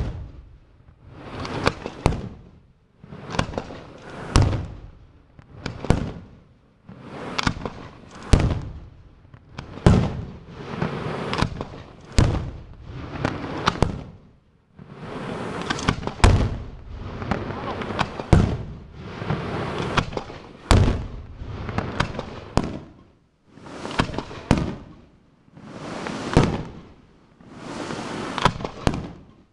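Aerial firework shells bursting in steady succession, about one every two seconds: sharp bangs, each followed by crackling and an echoing tail that dies away.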